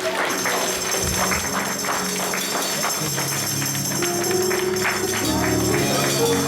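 Upbeat church music with a tambourine keeping a quick, steady beat, about four strokes a second, over held chords.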